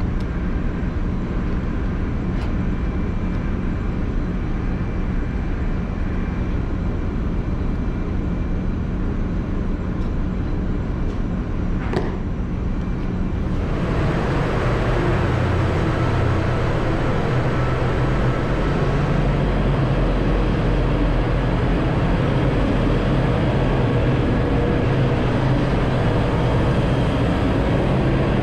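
Steady low drone of a ship's running machinery, with a single sharp click about twelve seconds in. Around fourteen seconds it gives way to the louder, fuller, steady noise of the engine room itself.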